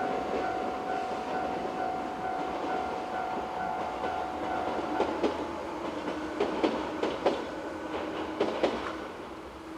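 A train passing over a level crossing, with the crossing's warning signal sounding as a repeating tone. From about halfway through, its wheels clack over the rail joints in a run of sharp knocks, and the sound fades as the train moves away.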